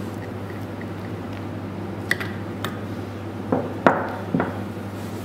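A few light metal clinks from a spanner and pneumatic cylinder parts being handled: two small clicks about two seconds in, then a cluster of louder clinks between three and a half and four and a half seconds in, over a steady hum.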